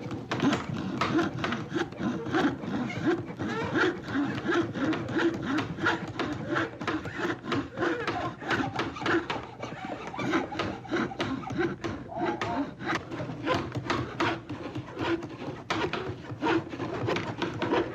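Hand saw cutting wood in quick, rhythmic back-and-forth strokes, about three to four a second.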